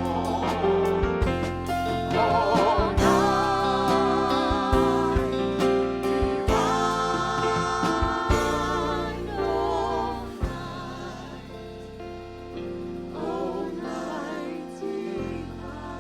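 Gospel-style Christmas song: a singer holding notes with vibrato over a band with bass and drums. It thins out after about ten seconds, and the bass drops out near the end.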